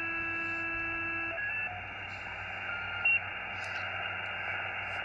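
Xiegu X6100 transceiver's receiver audio in USB: a steady hiss with whistling birdie tones. Several steady tones sound together for the first second or so, and shorter single tones come and go later as the dial is tuned, with a brief louder one about 3 s in. These are spurs generated inside the radio itself, which the owner says is the case.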